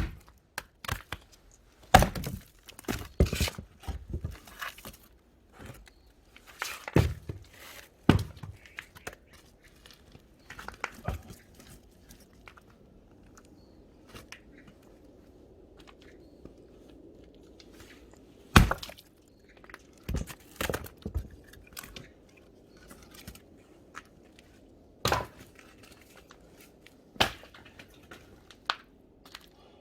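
Sharp wooden knocks and cracks of firewood work, coming at irregular intervals a few seconds apart, with lighter knocks and clatter in between.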